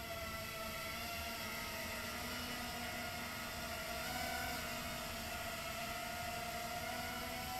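Realacc RX130 micro quadcopter's four Walkera Rodeo 1306 brushless motors with 3-inch three-blade props whining steadily in flight, a buzzing tone over a hiss, rising a little in pitch about four seconds in.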